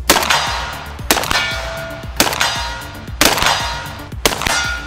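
Five shots from a Mossberg 940 Tactical semi-automatic 12-gauge shotgun firing 3-inch magnum slugs, about one a second. Each shot is followed by a short metallic ringing from the steel target being hit.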